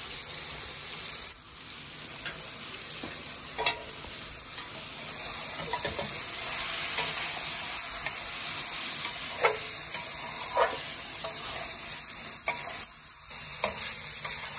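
Chicken, onions and spice masala sizzling in hot oil in an aluminium kadhai as they are stirred and fried down, with a spatula scraping and knocking sharply against the pan every second or two.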